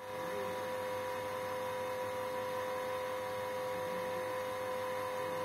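A steady electrical hum, a constant tone held at one pitch over a low hiss.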